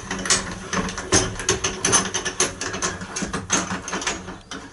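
Hand-cranked pigeon-box lid winder being wound, its mechanism giving a run of irregular clicks and rattles, several a second, as the lid is wound down shut.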